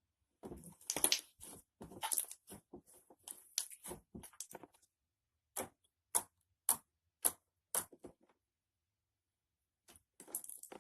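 Slime being squished and pressed by hand, crackling with a dense run of small clicks and pops. Then five separate pops come about half a second apart, and a short burst of crackling follows near the end.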